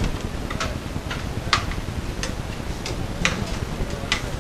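Sharp clicks and clinks of plates and serving utensils as biryani is dished out onto plates from a large steel pot, coming unevenly about once a second over a steady background hum.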